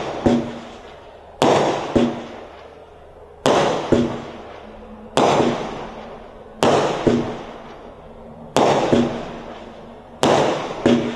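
Black Cat Rebel Rouser multi-shot aerial firework cake firing a shot every one and a half to two seconds. Each shot is a pair of sharp bangs about half a second apart, followed by a rush of noise that fades before the next.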